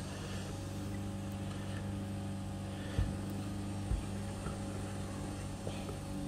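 Steady low machine hum, engine-like, made of a few steady low tones, with two short low thumps about three and four seconds in.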